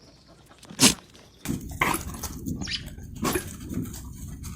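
A sheep sneezes once, sharply, about a second in. From about a second and a half a run of short, rough animal sounds follows.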